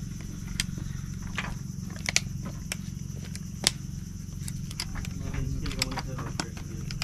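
Scattered sharp clicks and taps of a plastic waterproof phone case being handled, over a steady low hum and a steady high insect buzz.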